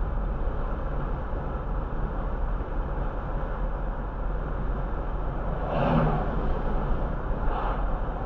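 Steady road noise of a car driving at about 32 mph, with tyre and engine rumble heard from inside the cabin. The noise swells briefly about six seconds in.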